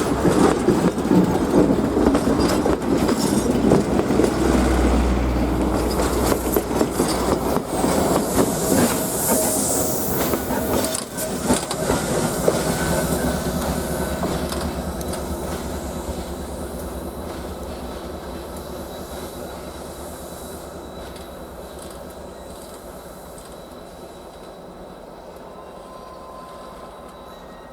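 Passenger train rolling past, its wheels clattering over the rail joints, loud for about twelve seconds and then fading steadily as it moves away.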